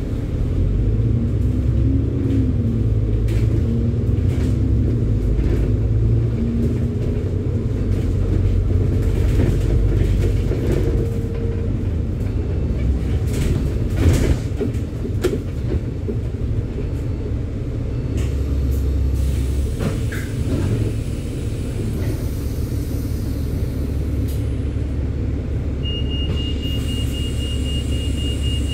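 Inside a bus: the engine running and the body rumbling as it drives along, with scattered knocks and rattles, one sharp knock about halfway through. Near the end a thin, steady high-pitched tone sets in.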